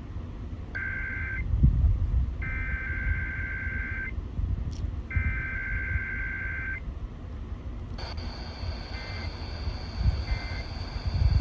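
Emergency Alert System SAME header: three bursts of two-pitch digital data tones, the first one short. About 8 seconds in, a steady electronic alert tone starts and carries on, over a low rumbling background.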